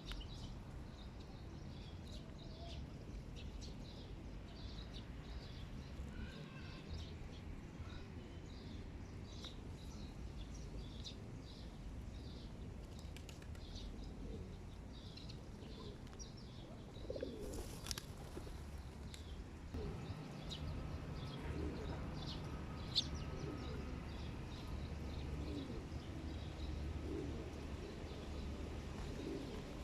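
Pigeons flapping their wings, with low cooing and small birds chirping repeatedly over a steady low rumble. A brief burst of wing flapping comes a little past the middle.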